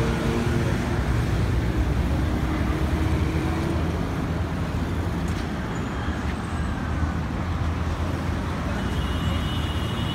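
Road traffic: motor vehicles running along a street, a steady low engine hum under a wash of traffic noise.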